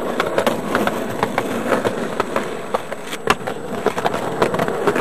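Skateboard wheels rolling over rough concrete, with a steady gritty rumble and many small clicks, and one sharp clack of the board a little over three seconds in.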